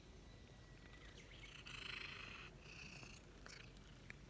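Grey Russian Blue stray cat purring faintly while its head is stroked, with a brief soft rustle about two seconds in.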